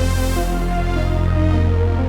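Roland JD-990 synthesizer playing the 'Blast Saw' patch: held chords over a steady low bass note. The chord tones change about half a second in and again near the end, and the high end slowly dims and brightens.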